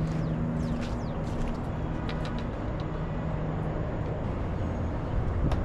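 Steady low rumble with a faint hum that comes and goes, a few light clicks and short chirps over it.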